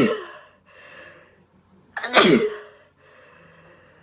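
A woman sneezing repeatedly: the tail of one sneeze at the start, a breath in about a second in, then a full sneeze about two seconds in whose voiced 'choo' falls in pitch, followed by a fainter breath.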